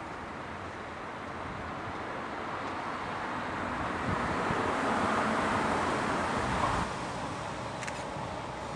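An articulated lorry's diesel engine and tyres on a wet road, a steady hum that swells about four seconds in and falls back suddenly near seven seconds.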